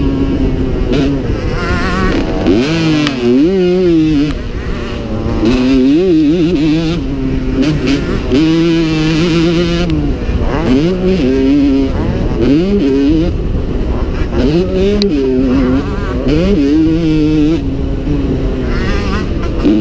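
1985 Honda CR125's two-stroke single-cylinder engine at full race throttle, heard from onboard. The pitch climbs hard and drops back again and again as the rider works through the gears and chops the throttle for corners.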